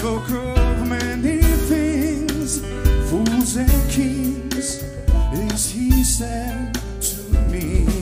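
Live jazz quintet playing a slow ballad: a male voice sings a melody line with vibrato over piano, guitar, bass and drums with cymbal strokes.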